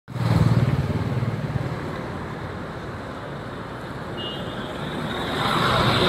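Street traffic noise: motor vehicles running past. It is louder at the start, eases off, then swells again near the end.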